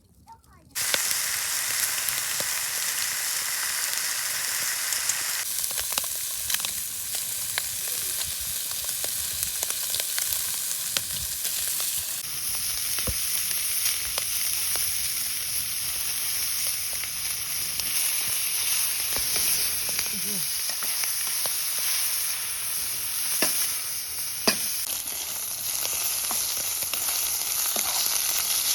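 Food sizzling as it fries in a hot pan, a steady hiss with scattered small pops, starting abruptly about a second in.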